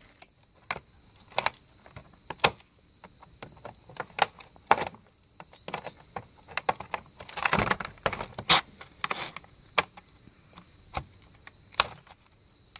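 Metal tip of a chainsaw combination tool prying and picking at a staple on a hard clear plastic bar cover: irregular clicks, scrapes and plastic rattles, busiest a little past halfway. A steady high insect chirring runs behind.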